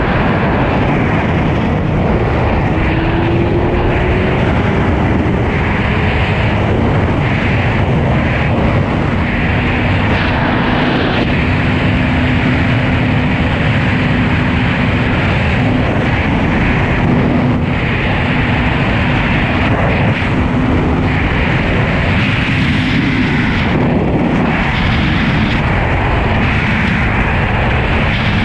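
Suzuki GSX-R1000 sportbike being ridden at speed: loud, steady wind rush over the microphone with the engine's drone underneath. The engine note climbs about three seconds in, then holds a steady pitch.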